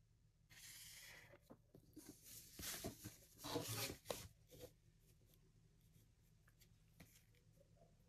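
Marker pen scratching along a plastic French curve ruler on pattern paper, with the ruler sliding and being shifted on the paper. One short stroke about half a second in, then a louder run of strokes from about two and a half to four and a half seconds, then only faint ticks.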